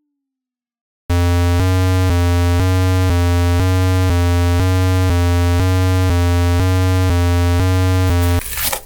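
Buzzy, low synthesizer tone pulsing evenly about twice a second, a cartoon railroad crossing's warning signal done as a strange electronic sound in place of the usual bell. It starts about a second in and stops near the end, giving way to a short noisy rush.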